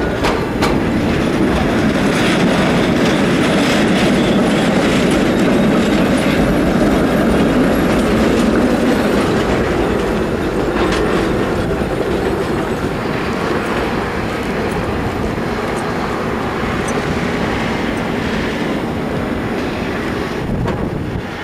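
Trams rolling through a track junction: steel wheels clattering over the points and crossings with sharp clicks and a faint squeal. The noise is loudest in the first half and slowly eases off toward the end.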